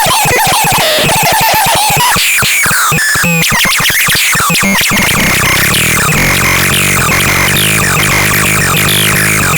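Synthesizer playing harsh electronic tones: sweeping pitch glides and rapid stuttering pulses at first, then, about five seconds in, a dense, steady low buzz with a high whistle over it.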